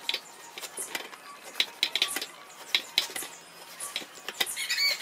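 Knife sawing through a crusty baguette: irregular crackling and crunching of the crust as the pieces are cut.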